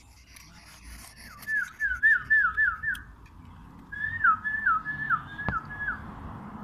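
Two runs of short whistled notes, each note falling in pitch, repeated about four times a second with a pause of about a second between the runs.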